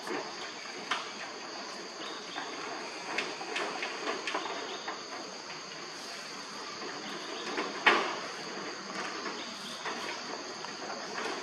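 Insects droning steadily at a high pitch, with scattered knocks and scuffs of macaques moving about on a corrugated metal roof, one sharper bang about eight seconds in.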